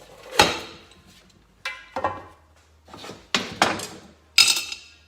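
A series of sharp metallic clanks and knocks, about six in all, as metal engine parts and tools are handled and set down. The loudest comes about half a second in, and the last, near the end, rings briefly.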